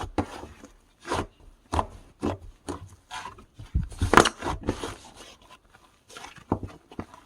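Slime being squished and pressed by hand: irregular clicks and crackly pops, a few a second with short pauses between handfuls.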